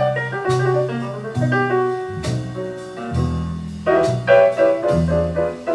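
Instrumental jazz passage played back through hi-fi loudspeakers in a listening room: piano with a stepping bass line and cymbal strikes, from a CD played through a Yamaha GT-CD1 CD player and a Lo-D HMA-9500MK2 power amplifier.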